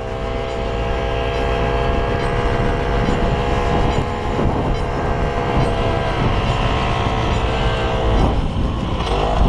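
Snowmobile engine running steadily while towing a snowboarder on a strap, with wind rumbling on the action camera's microphone. About eight seconds in, the engine's tone is swamped by a rush of noise as snow sprays over the camera.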